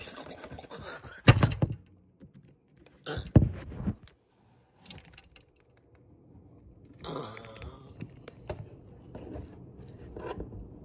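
Scattered dull thumps, scrapes and small clicks of a phone being knocked about and handled on a tabletop. The loudest thumps come about a second in and again about three seconds in. A short strained vocal sound comes about seven seconds in.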